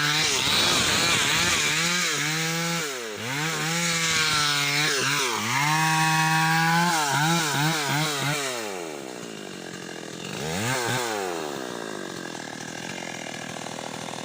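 Stihl chainsaw running at high revs through a cut in teak, the revs sagging and picking up again several times. About eight and a half seconds in it drops to a quieter, lower run, with one brief rev near eleven seconds.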